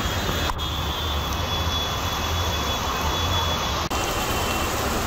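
Heavy monsoon rain pouring onto a waterlogged street: a loud, steady roar of rain and running floodwater with a low rumble underneath.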